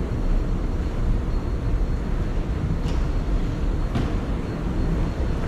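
Steady rumble and hiss of a moving train heard from inside the car, with two light clicks about three and four seconds in.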